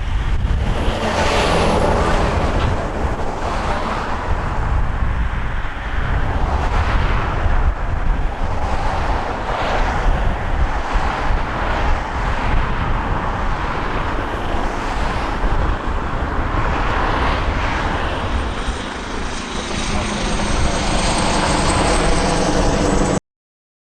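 Embraer E190 jet engines (GE CF34-10E turbofans) running loud and steady, a rushing roar with a thin high whine over it; the sound cuts off abruptly near the end.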